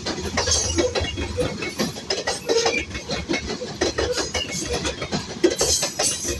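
Freight train of grain hopper cars rolling past, with a steady rumble and many irregular clicks and clanks of the wheels on the rails.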